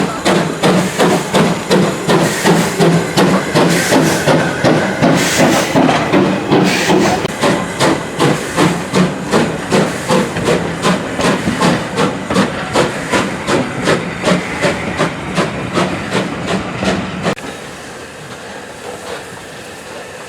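Steam locomotive working under steam: a steady rhythm of exhaust chuffs, about two and a half beats a second, over a hiss of steam. The beats stop abruptly about three seconds before the end, leaving a quieter hiss.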